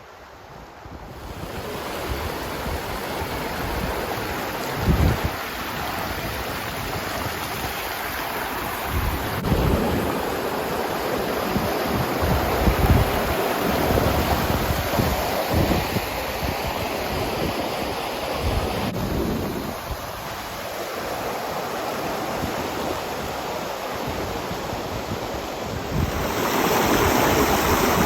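Wind buffeting the microphone in gusts over a steady rush of water, swelling about a second in.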